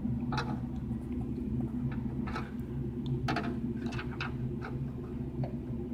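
A scattering of short, soft clicks, about six of them at uneven intervals, from controls being pressed while the picture settings are adjusted. Under them runs a steady low electrical hum.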